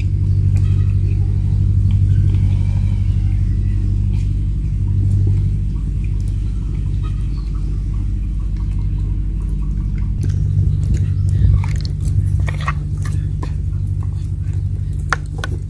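A steady low mechanical hum runs throughout. From about ten seconds in, chopsticks click and tap against a ceramic plate as pieces of marinated fish are turned over.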